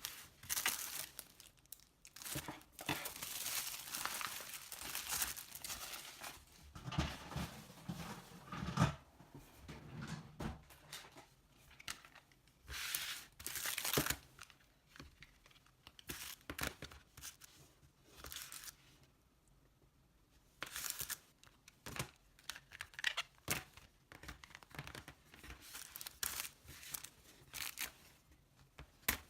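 Packaging being torn open and crinkled by hand in irregular rustling bursts, pausing briefly about two-thirds of the way through.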